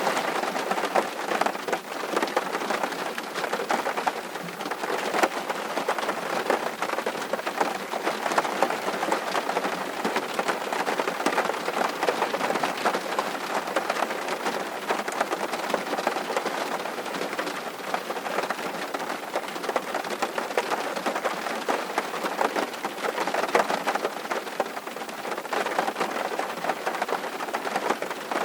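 Steady summer rain falling, a dense, even patter of drops.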